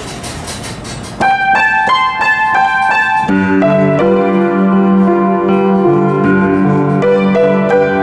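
Century-old honky-tonk Hamilton upright piano played by hand. About a second in, a few high single notes start the tune, and from about three seconds in fuller chords with low bass notes join.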